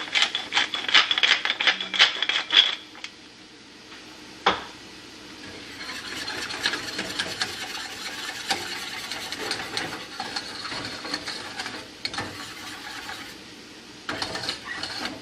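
Pepper grinder being twisted: a quick run of rasping clicks for about three seconds. A single sharp knock follows a little later, then softer scraping in the pot, with another short run of clicks near the end.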